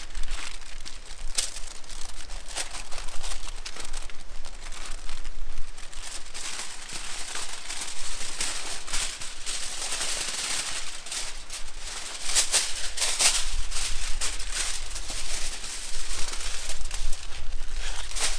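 Campfire crackling and hissing, with many irregular sharp pops and snaps.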